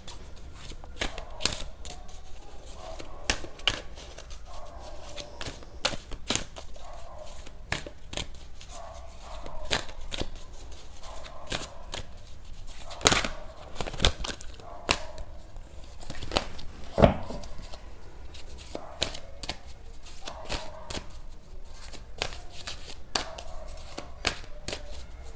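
Tarot cards being handled: shuffled and laid down, giving irregular sharp snaps and taps, with two louder snaps about halfway and two-thirds of the way through.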